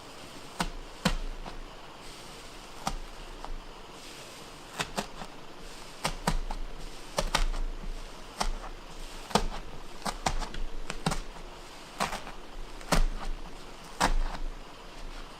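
A series of irregular sharp clicks and taps, some in quick pairs, over a faint steady hiss.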